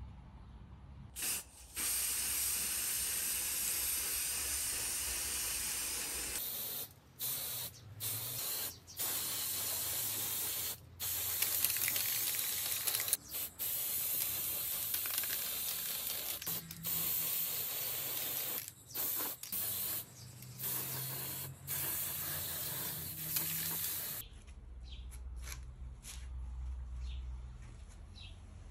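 Aerosol spray-paint can hissing in a series of long bursts with short breaks between them, stopping a few seconds before the end.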